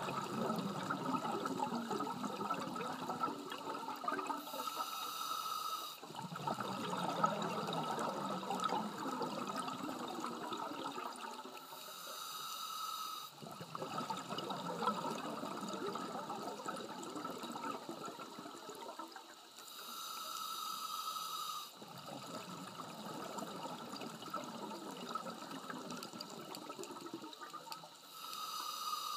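Scuba diver breathing through a regulator underwater: a short hissing inhale about every eight seconds, each followed by a long bubbling exhale.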